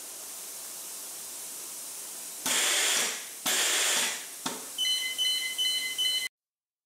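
ZIPPTORK TCB-2000 torque controller running its power-on self check: two loud bursts of rushing noise, then the unit's buzzer beeping in quick pulses, about three a second, which cuts off suddenly.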